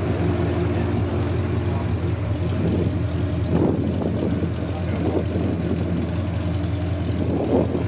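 Chevrolet Corvette ZR1's supercharged 6.2-litre LS9 V8 idling steadily through an Akrapovic exhaust with American Racing long-tube headers.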